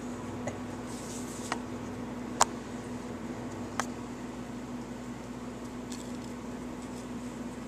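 Kitten playing on a hardwood floor: a few light, sharp taps, the loudest about two and a half seconds in, over a steady low hum.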